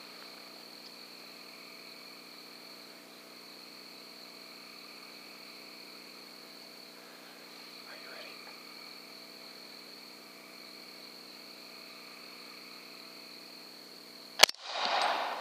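A steady, high chorus of night insects and frogs, then one rifle shot fired at feral hogs near the end, its report ringing out and dying away over about a second.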